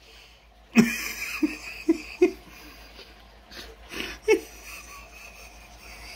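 A person laughing in short, breathy bursts, in two runs a few seconds apart.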